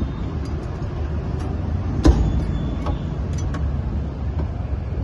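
Cleaver chopping roast meat on a thick wooden chopping block: a few scattered sharp knocks, the loudest about two seconds in, over a steady low rumble of street traffic.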